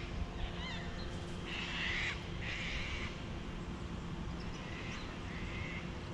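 Outdoor bird calls: two harsh calls about one and a half and two and a half seconds in, fainter ones around five seconds, and a few small chirps near the start.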